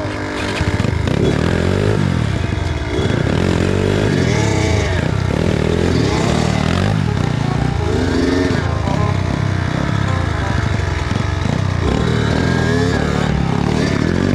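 Kawasaki KX85 two-stroke dirt bike engine revving, its pitch rising and falling every second or two as the throttle is worked.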